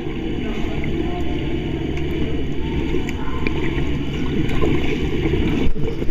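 Muffled rushing and bubbling of water around a swimmer, heard from below the surface, mostly low in pitch.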